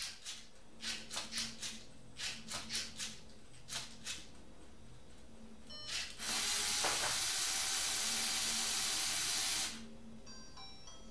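LEGO Mindstorms NXT servo motors of a felt-tip printer moving the pen in a dozen or so short bursts, in small groups. About six seconds in, a motor runs steadily for about three seconds as the printed page is fed out, then stops.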